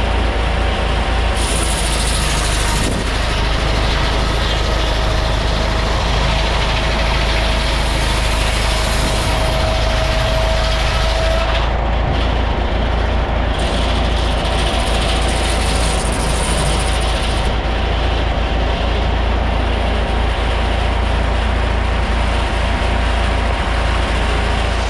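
Antique flat-belt-driven sawmill running off a vintage tractor: a loud, steady machinery din with a sustained whine that wavers slightly in pitch.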